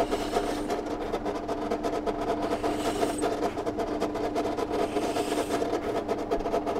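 Bench pillar drill running steadily, its 5.5 mm bit drilling shallow locating-pin holes into a wooden board.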